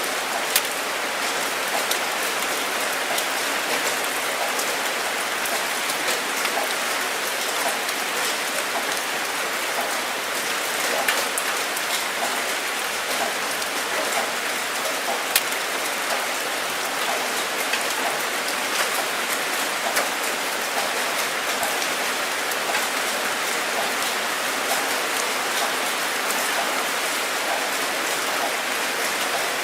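Steady rainfall: an even hiss of rain with the sharp ticks of individual drops striking a surface scattered through it.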